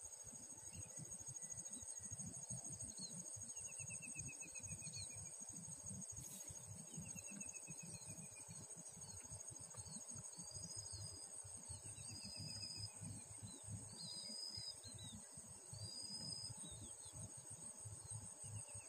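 Insects trilling, a steady high pulsing buzz, with a bird's short descending trills repeated every few seconds and other brief whistled calls in the middle. Wind rumbles on the microphone.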